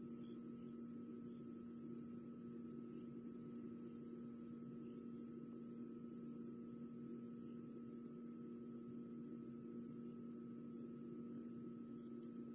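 A faint, steady hum made of a few fixed tones, with a steady high hiss above it and no change throughout.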